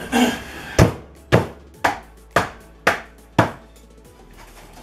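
Six sharp blows in a steady run, about two a second, the first the loudest, as old mobile-home kitchen cabinet framing is knocked loose from the wall and floor.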